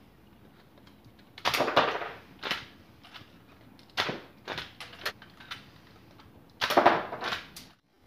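Home-built Lego semi-automatic pistol, powered by a spring and rubber band, firing several times: sharp plastic clacks of the trigger release and blowback slide, in about four loud clusters with lighter clicks between, the last and loudest about seven seconds in.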